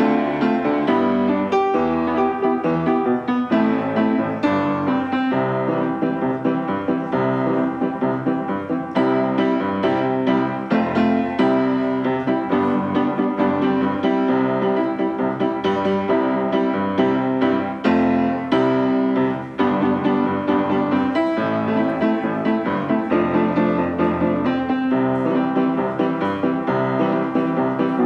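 Background piano music with a steady run of notes.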